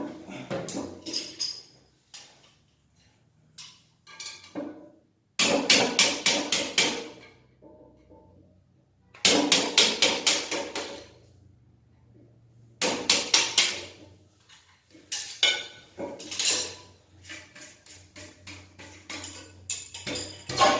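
Repeated bursts of rapid sharp knocking, each a quick run of strikes lasting a second or two, coming every few seconds, from hands-on work on a toilet cistern's leaking valve parts.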